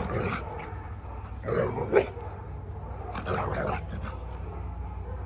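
Two dogs play-fighting with play growls in three bursts, the loudest about two seconds in, with pauses between.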